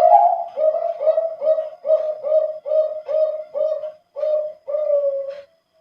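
Male zebra dove (perkutut) of the Bangkok contest strain singing its thick, deep cooing song: a longer opening coo followed by about ten short coos at roughly two a second, closing on a longer drawn-out note.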